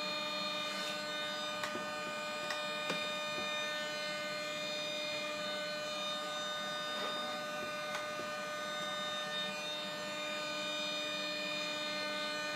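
Steady electrical whine made of several even, unchanging tones, with a few faint clicks.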